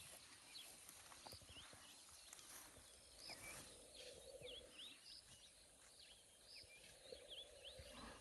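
Faint bush ambience: many small birds give short, curving chirps over and over, over a steady high hiss of insects.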